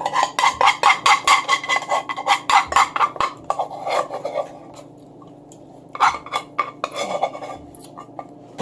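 Eating noises close to the microphone: a fast run of clicks and clinks from cutlery and chewing lasting about four seconds, then a shorter run about six seconds in.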